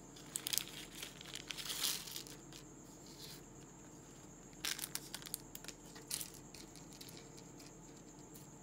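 Small clear plastic bag crinkling as it is handled and its electronic kit parts are tipped out, in two bouts: one in the first couple of seconds and another about five seconds in.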